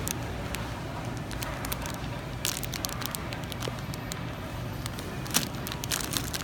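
Clear cellophane wrapping on marshmallow candy pops crinkling and crackling as it is handled, in irregular crackles that are loudest about two and a half seconds and five and a half seconds in, over a steady low hum.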